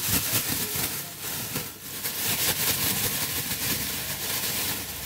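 Clear plastic bag of cucumbers, salt, garlic and herbs shaken hard to mix the seasoning through: the bag crinkles and rustles continuously with the contents tumbling inside.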